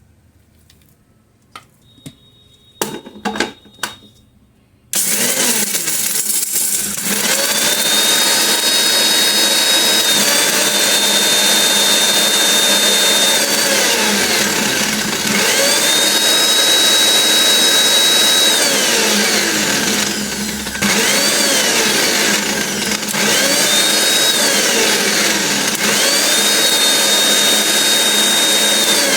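Electric kitchen mixer grinder. A few clicks and knocks come first; then, about five seconds in, the motor starts and runs loud and steady. Its whine falls and rises in pitch several times, with a brief dip about two-thirds of the way through.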